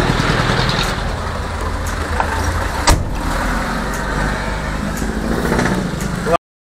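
Car engine and road noise while driving, a steady low hum. A single sharp click about three seconds in, and the sound cuts off suddenly near the end.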